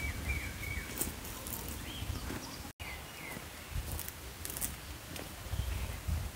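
Footsteps of rubber boots on dry dirt, dull thuds about once a second, with small birds giving short high chirps that fall in pitch. The sound cuts out for an instant about three seconds in.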